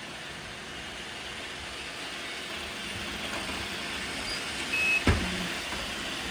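Robot vacuum cleaners running on a hard floor: a steady whirring of motors and brushes that slowly grows louder. Just before five seconds in there is a short high beep, then a sharp knock.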